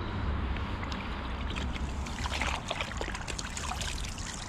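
Water sloshing and splashing as a cooler of caught fish is tipped out to release them into a creek, the splashes clustering a couple of seconds in, over a low wind rumble.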